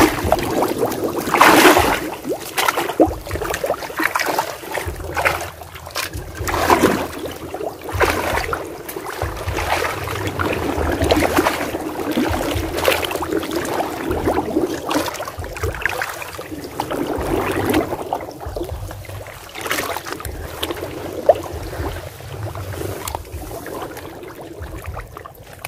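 Wading and groping through shallow muddy water: irregular sloshing and splashing, with louder splashes about a second and a half and about seven seconds in.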